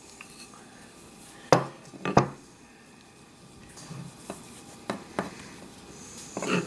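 Sharp knocks and clicks of hand tools being handled on a worktable: a wooden dowel and a metal skiving knife being moved and set down. Three loud knocks come close together about a second and a half in, lighter clicks follow, and another knock comes near the end.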